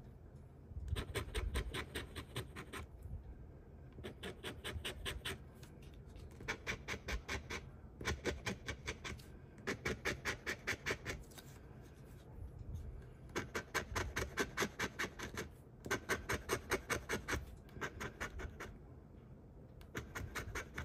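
A large metal coin scraping the scratch-off coating from a paper lottery ticket in rapid back-and-forth strokes. The strokes come in runs of a second or two, with short pauses between them.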